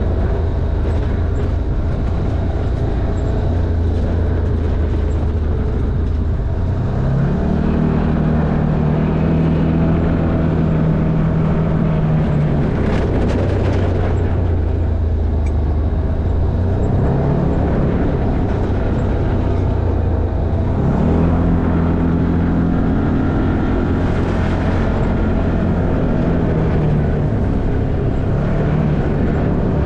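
Side-by-side off-road vehicle's engine running as it drives a dirt trail, with a steady low hum. Three times the engine note rises as it speeds up and then holds steady for a few seconds.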